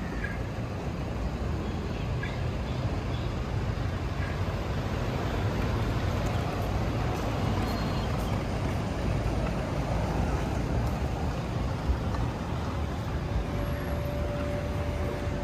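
Steady city street traffic: the low rumble and hiss of passing cars and other vehicles. A faint steady hum joins in near the end.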